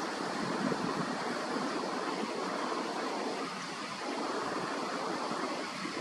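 Steady rushing background noise with no distinct events; no kingfisher call is heard.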